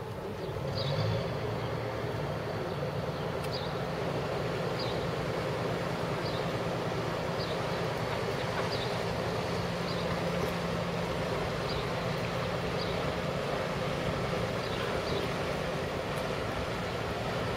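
Steady low drone of a small motor boat's engine as it runs on the river, over a noisy city-and-water haze. Short high chirps repeat every second or so on top.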